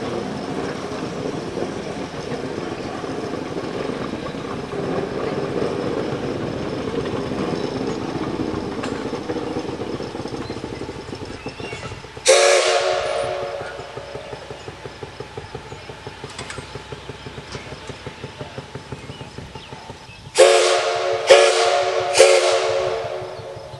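Shay geared steam locomotive running past, its exhaust chuffing steadily. About twelve seconds in, its steam whistle gives one longer blast, and near the end three short blasts.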